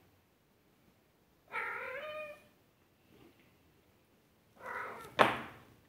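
British Shorthair kittens meowing: one drawn-out cry of about a second near two seconds in, then two shorter cries near the end, the last one the loudest and sharpest.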